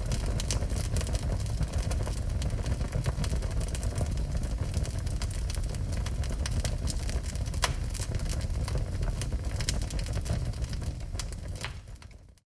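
Wood fire burning in a fireplace: a steady low rumble of flames with frequent sharp crackles and pops. It fades out just before the end.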